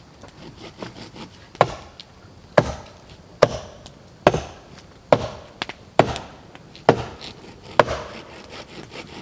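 Wood being chopped: about eight steady blows a little under a second apart, with lighter knocks between.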